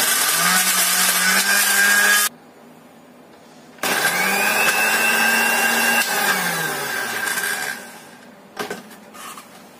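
Countertop blender grinding raw chicken and beef with ice cubes into a meatball paste, run in two bursts. It runs for about two seconds and cuts off suddenly. After a short pause it runs again for about two seconds, then winds down with a falling pitch.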